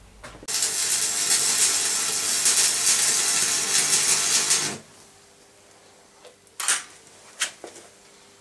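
Electric arc welding: the arc crackles and hisses steadily for about four seconds, starting about half a second in and cutting off sharply. A few faint clicks and taps follow.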